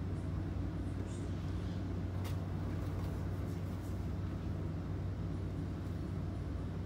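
Steady low hum from a motor or appliance running in the room, with an even background hiss and a few faint ticks a couple of seconds in.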